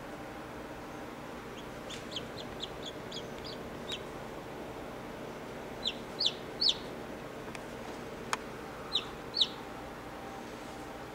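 Newly hatched chicken chick peeping in short, high chirps: a quick run of faint peeps about two seconds in, then louder single peeps in the middle and again near the end, over a steady low hum.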